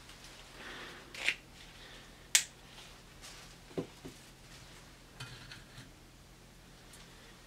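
A few sharp small clicks and light metallic taps from camping cookware being handled, the loudest about two seconds in. Near the end comes a brief light clatter as a wire-mesh PC fan filter is set over a folding stove stand.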